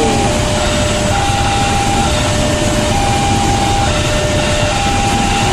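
Railway level-crossing warning alarm sounding a two-tone high-low signal, each tone lasting just under a second, over the steady rumble of a KRL commuter electric train running across the crossing.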